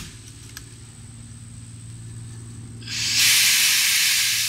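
Compressed air hissing loudly and steadily from a pneumatic stunt ratchet charged to about 400 psi. The hiss starts suddenly about three seconds in, over a low steady hum.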